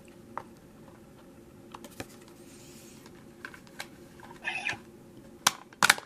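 Scattered light plastic clicks and taps from a toy Dragvisor being handled, with a short rustle about four and a half seconds in and two sharp clicks near the end as a hand presses on the visor, over a faint steady hum.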